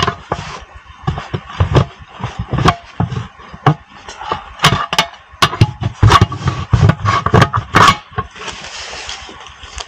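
Irregular metal knocks and scrapes as the loose lock ring on a crane's split-rim wheel is worked at to get it off, with the loudest knocks in the second half and a steady hiss coming in near the end.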